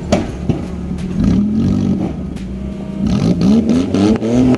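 An off-road 4x4's engine revving up and easing off twice as it works over rock ledges, with scattered sharp knocks.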